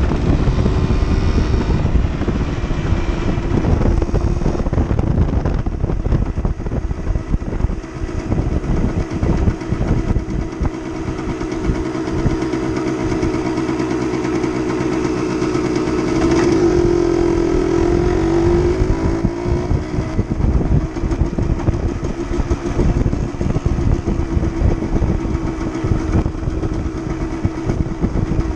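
Suzuki TSR motorcycle engine running steadily under way, with wind rumble on the microphone. A little past the middle the engine note dips and then climbs again as the bike slows and picks up speed.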